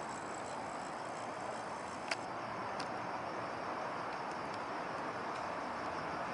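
Steady background hiss with two small clicks, about two and three seconds in.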